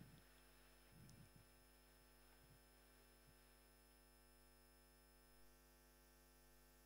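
Near silence: a faint steady electrical hum, with a faint brief sound about a second in.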